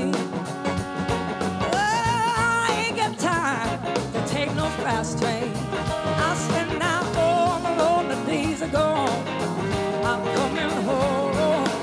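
Live rock band playing a full arrangement of drums, electric guitar and Hammond organ, with a woman singing lead over it in a wavering, held voice.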